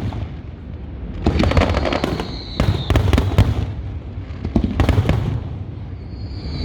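Aerial fireworks going off in quick clusters of sharp bangs and crackling, a burst every second or so. Near the end a high whistling shell starts up.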